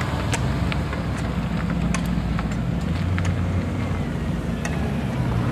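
Car engine idling steadily, with scattered sharp clicks over it.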